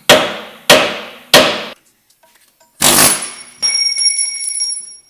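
Heavy anti-vibration hammer striking steel at a leaf spring mount while knocking out a leaf spring bolt and bushings: three sharp blows about two-thirds of a second apart. About three seconds in comes a louder crash, then a ringing metallic rattle that fades near the end.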